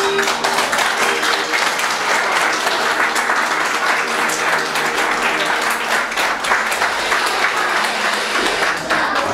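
Audience applauding, a dense patter of many hands clapping, just as the dance music stops at the start.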